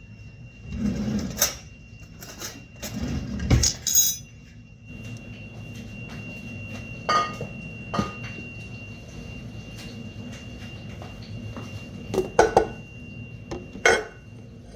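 Kitchen handling noises: scattered knocks, clinks and clatters of containers and utensils while seasoning is added to a bowl, a cluster of them about a second in, more around three to four seconds in and near the end, over a steady low hum and a thin high whine.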